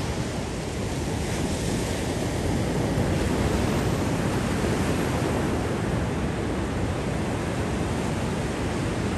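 Ocean surf breaking and washing up a sandy beach, a steady wash of noise.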